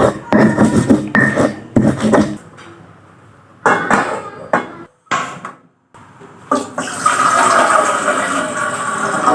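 Kitchen cookware and utensils clattering for the first couple of seconds and again briefly near the middle, then a steady hissing rush for the last three seconds.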